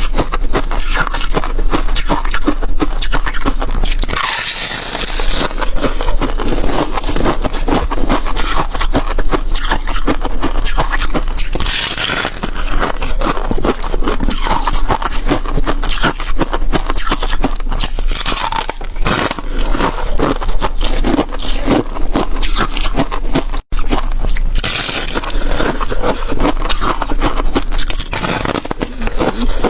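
Close-miked crunching and scraping of flaky frozen ice being bitten and chewed: a dense, continuous crackle of small cracks, with louder hissy scrapes a few times. The sound drops out for an instant near the end.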